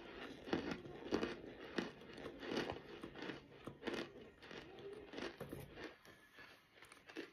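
Raw cornstarch being chewed close to the mouth: crunches about two a second, thinning out and growing quieter near the end.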